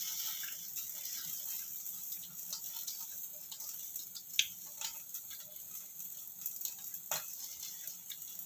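Steady sizzling hiss from food cooking on the stove, with a few sharp clicks of a spoon against a plate.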